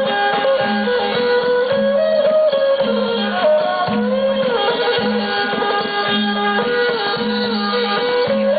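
Traditional folk music: a sliding, wavering melody line over a steady, evenly repeating hand-drum beat.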